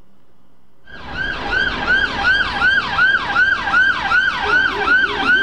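Police car siren on a fast rising-and-falling sweep, about two and a half sweeps a second, cutting in about a second in. Near the end a much lower howler tone joins in the same rhythm.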